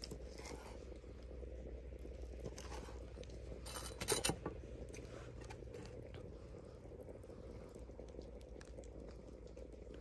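A grilled sausage being cut through its crisp casing on a wooden board, one short crunching crackle about four seconds in, over a faint steady low background noise.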